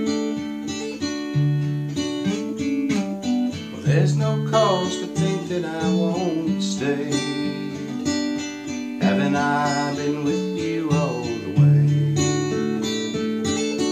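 Steel-string acoustic guitar picking and strumming chords over recurring low bass notes, the instrumental opening of a slow song before the vocal comes in.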